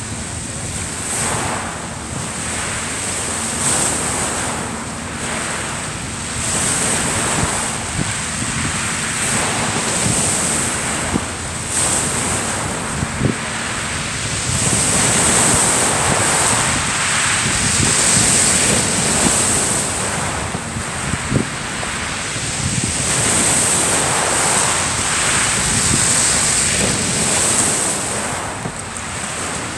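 Small waves breaking and washing over a shingle beach, the hiss rising and falling every few seconds, with wind buffeting the microphone. A few sharp knocks stand out now and then.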